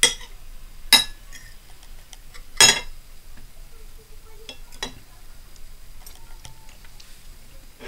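A metal knife and fork clinking and scraping against a plate while cutting a boiled egg in gravy: three sharp clinks in the first three seconds, the third the loudest, then a few lighter taps.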